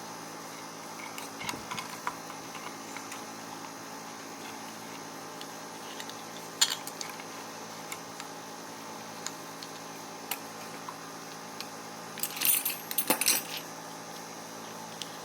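Small metal parts clinking and clicking as they are handled, with scattered single clicks and a burst of rattling near the end, over a steady low hum.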